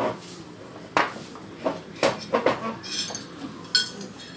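Dishes and cutlery clinking on a table: a few sharp knocks, then a quick run of ringing clinks near the end.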